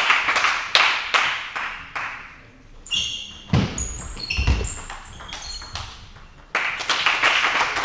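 Spectators clapping, then a table tennis rally: the plastic ball clicks off the table and bats with short, bright pings, along with a couple of low thuds. The clapping starts again near the end.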